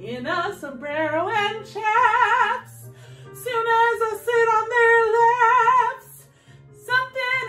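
A woman singing a show tune solo with a wide vibrato over a quiet accompaniment, holding long notes in the middle. The voice breaks off about six seconds in and comes back just before the end.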